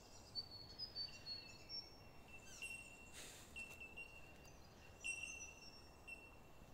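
Near silence with faint high bird chirps and a thin high whistle that comes and goes; a brief soft hiss about three seconds in.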